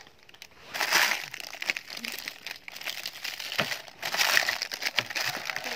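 Clear plastic bags crinkling as they are handled and moved into a plastic tray, in bursts of rustling about a second in and again around four seconds in.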